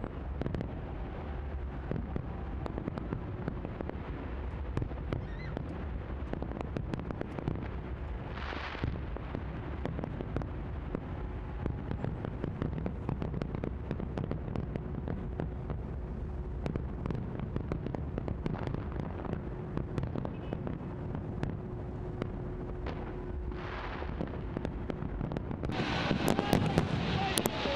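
Fireworks display: a continuous rattle of bangs and crackles over a low rumble, with a brief hiss twice. The bursts grow louder and denser near the end.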